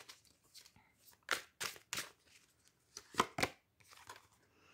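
Playing-card-sized oracle cards being handled: a handful of short snaps and swishes as cards are shuffled and drawn from the deck, the loudest a little past the middle.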